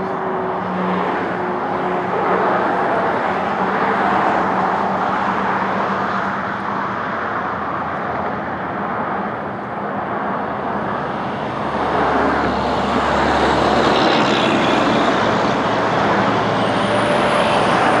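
A large group of motorcycles riding past, their engines and tyres merging into a steady, dense drone that swells about twelve seconds in.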